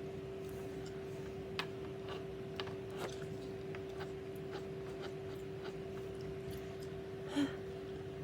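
Soft scattered clicks and taps of a makeup brush against a powder compact, over a steady hum. A short breathy vocal sound comes about seven seconds in.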